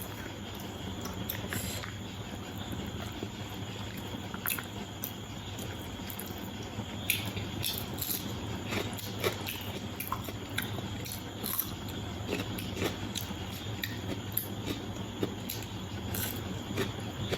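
Someone eating biriyani: scattered small clicks and smacks of chewing and biting, more frequent from the middle on, over a steady low background hum.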